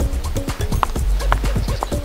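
Cartoon background music with a steady, repeating beat, with clip-clop hoofbeats from a running deer.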